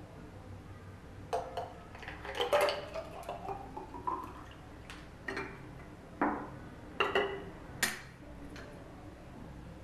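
Watermelon punch poured from a glass jug into a glass jar, the pouring tone rising in pitch as the jar fills. Several sharp glass clinks sound as the glassware is handled and set down on the counter.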